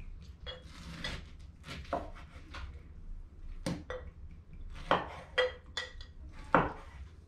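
Kitchen knife knocking on a wooden cutting board as a pineapple is cut into cubes, mixed with clinks of glass as a rum bottle is poured into tasting glasses. Irregular sharp knocks, the loudest a few in the second half.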